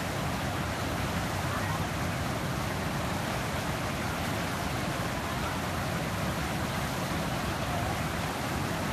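Fast river water rushing through rapids, a steady even noise.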